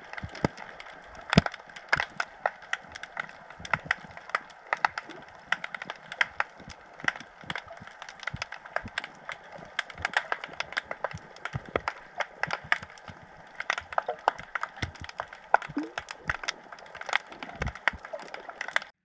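Underwater crackle of a harbour floor: dense, irregular sharp snaps and clicks, several a second, over a steady hiss. This is the sound of snapping shrimp.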